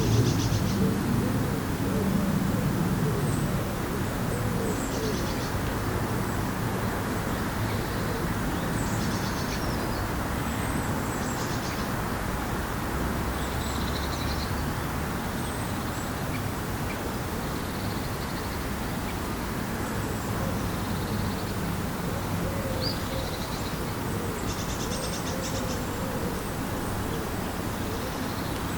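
Lakeside ambience: birds singing, with scattered short high chirps and trills, and low cooing calls near the start and again past the middle, over a steady rushing background noise.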